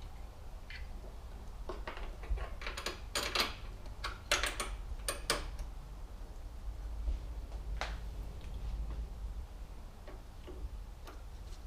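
Scattered clicks and light knocks of a transmission control unit module being handled and slid into its tabbed mount, bunched a couple of seconds in, with a single click near eight seconds, over a low steady hum.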